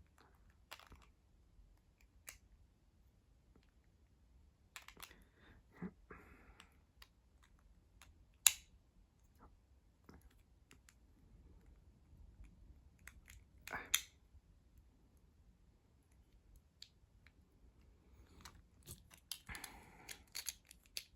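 Faint, scattered clicks and taps of small plastic Beyblade X parts (blade, ratchet and bit) being handled and snapped together, with two sharper clicks near the middle.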